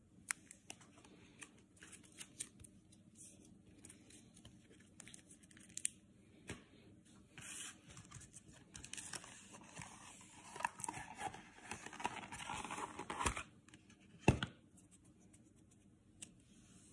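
Clear plastic trading-card holders and packaging being handled on a countertop: scattered light clicks, a stretch of rustling and scraping in the middle, and one sharp plastic click near the end.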